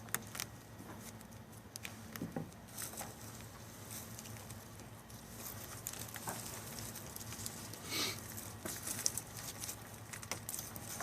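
Hands rummaging through loose potting soil to dig out sweet potatoes: scattered soft rustles, scrapes and small taps, with the biggest rustle about eight seconds in.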